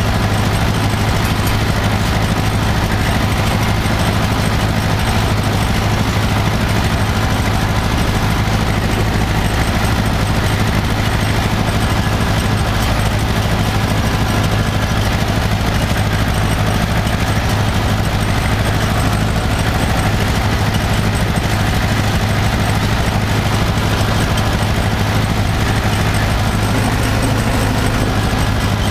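Farm tractor's diesel engine running at steady revs under load, pulling in third gear with the power take-off turning a hay rake; a constant low engine hum.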